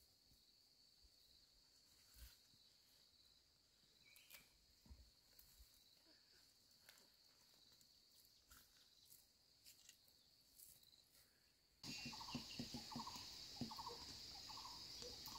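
Near silence outdoors, with a faint steady high insect drone and a few soft ticks. About twelve seconds in the background gets louder: the insect drone is stronger, with short chirps repeating over it.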